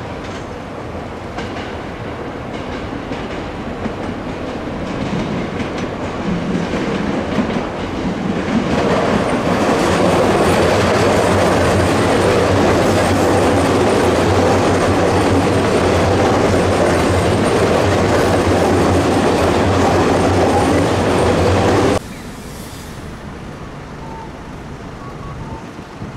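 JR Chuo Line electric commuter trains running by on the tracks: a 209-series train approaching, then an E233-series train passing close and loud with steady wheel rumble and rail clatter. Near the end the train sound cuts off abruptly to quieter street traffic.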